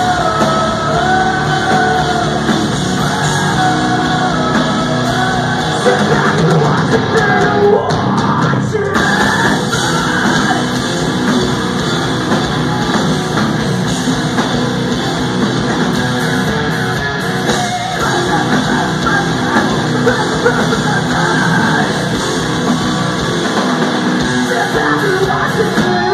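Hard rock band playing live, heard loud from within the audience: drums, electric guitars and a female lead singer.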